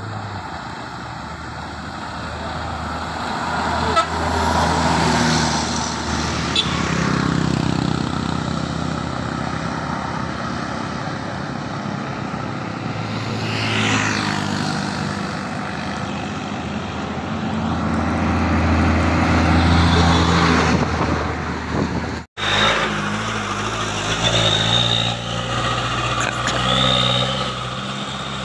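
Diesel buses and trucks passing close by on a highway one after another. Each engine grows louder as the vehicle approaches and drops in pitch as it goes past, with tyre noise, and a horn toots. After a brief cut near the end, a loaded truck's diesel engine pulls away.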